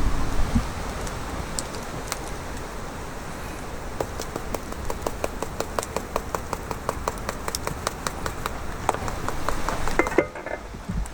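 Wood campfire crackling and popping under an iron frying pan: a dense, irregular run of small sharp pops, busiest in the middle.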